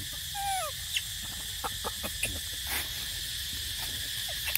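Baby macaque giving a single short cry that falls in pitch, about half a second in, over a steady insect drone; a few faint clicks follow.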